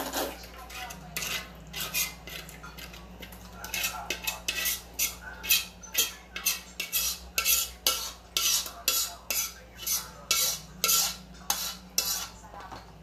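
A utensil scraping and knocking against the inside of a steel cooking pot as spaghetti sauce is scraped out into a container. The strokes come sparsely at first, then about two to three a second from about a third of the way in until near the end.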